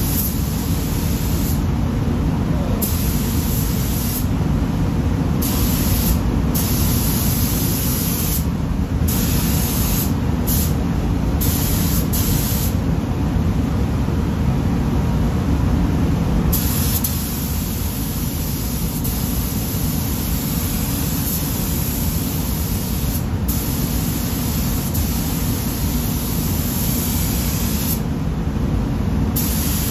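Gravity-feed air spray gun hissing as paint is sprayed in repeated passes. The trigger is released for short breaks between strokes and for about four seconds near the middle. Under it runs a steady low rumble of air moving through the paint booth.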